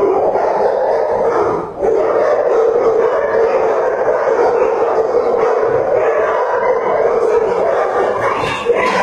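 Many shelter dogs barking and howling at once in the kennel block, a loud unbroken din that dips briefly about two seconds in.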